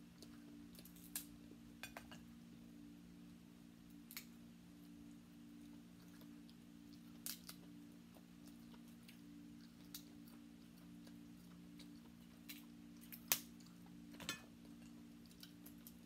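Cooked crab shell cracking and snapping as it is picked apart by hand: about ten faint, scattered sharp clicks, the loudest about three seconds before the end, over a steady low hum.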